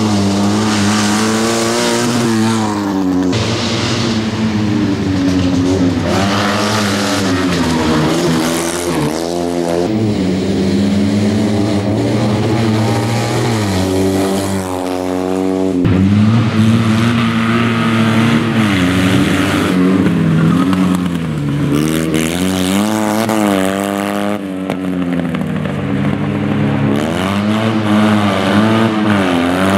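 Fiat 126p rally car's air-cooled two-cylinder engine running at high revs, its pitch climbing and dropping back over and over as the car accelerates and lifts off through the bends.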